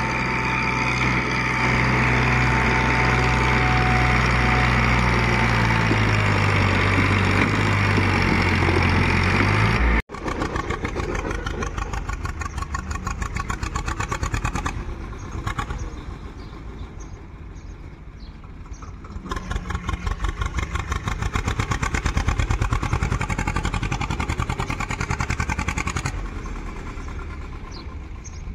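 Tractor diesel engines working hard pulling a trolley. The first engine runs steadily, its pitch rising slightly, until a sudden cut about ten seconds in. After that a second tractor's engine chugs with a fast, even beat that swells and fades.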